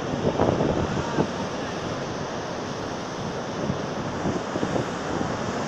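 Rough storm surf breaking and washing onto the shore as a steady rushing roar. Wind gusts buffet the microphone in the first second or so.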